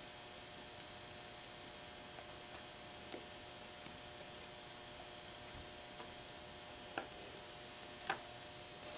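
Faint steady electrical hum and hiss of room tone, with a handful of faint soft ticks, spaced a second or so apart, as a ball of Dust Dabber cleaning putty is dabbed onto and lifted off a model road surface.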